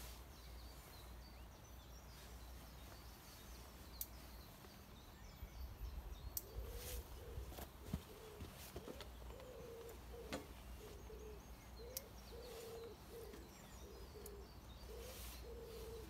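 Pigeon cooing: a run of repeated low coos starting about five seconds in, over a steady low outdoor rumble, with faint small-bird chirps and a few light clicks.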